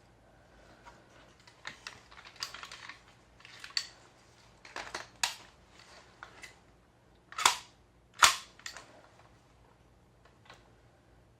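GHK OTs-14 Groza gas blowback airsoft rifle on green gas: a run of sharp mechanical clacks and rattles from the gun being handled, then two loud shots under a second apart, each with the crack of the gas-driven bolt cycling.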